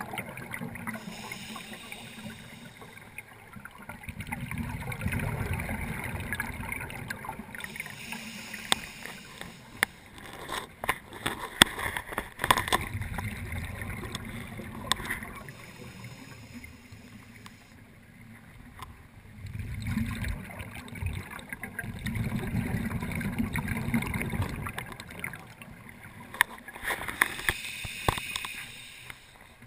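Underwater, a scuba diver's regulator venting exhaled bubbles: long gurgling bursts that swell and fade every few seconds, heard muffled through the camera housing. Sharp clicks come in among them in the middle.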